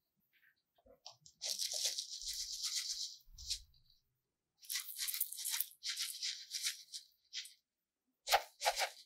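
Loose green sand poured from a clear plastic cup onto a flat board: a dry, crunchy hiss in two spells of a couple of seconds each, then a few short crunches near the end.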